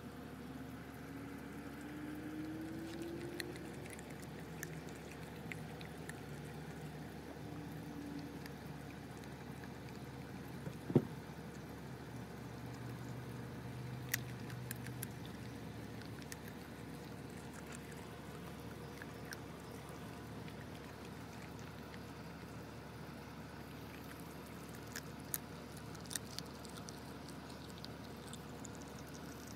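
Pitbull puppy gnawing a piece of raw chicken, with scattered small crunching clicks over a steady background hiss. One sharp knock about eleven seconds in is the loudest sound.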